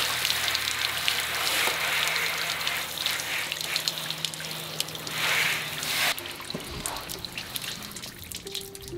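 Water from a garden hose spray nozzle hissing onto a car's painted body panels as the car is rinsed. The spray swells and fades twice and stops about six seconds in, leaving scattered drips.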